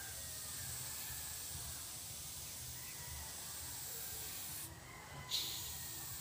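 Airbrush hissing steadily as it sprays paint. The hiss stops for about half a second near the end, then starts again with a short sharp burst.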